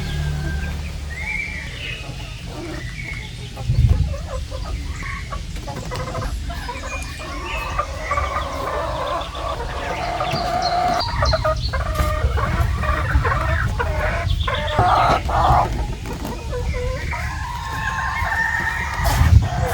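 A flock of chickens clucking, with a rooster crowing among them, over a low rumble, and a single low thump about four seconds in.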